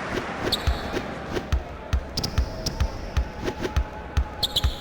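A basketball bouncing on a hardwood court, a string of low thumps about two to three a second, with brief sneaker squeaks now and then.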